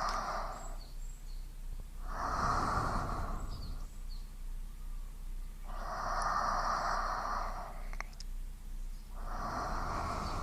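A person breathing slowly and evenly, each breath a soft hiss lasting about two seconds, with a new breath about every three and a half seconds, over a steady low hum.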